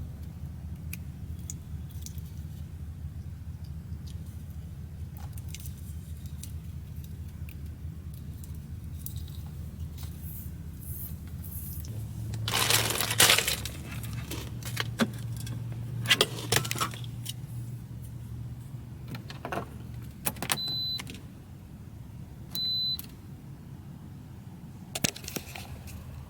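Clicks, rustles and metallic clatter of hands working on electrical wire and a cord connector, with a few louder bursts of handling noise partway through. Two short electronic beeps sound about two seconds apart near the end, over a steady low hum.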